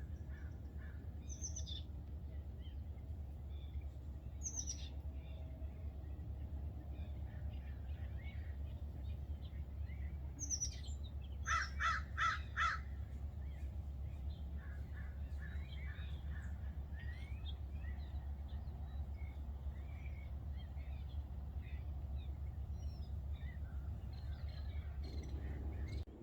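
Wild birds calling: scattered chirps, a few high down-sweeping calls, and a quick run of five loud harsh calls about halfway through. A steady low rumble lies underneath.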